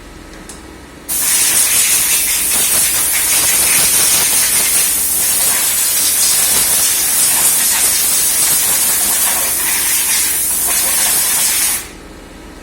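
A pressurised jet hissing loudly and steadily, turned on abruptly about a second in and cut off sharply near the end.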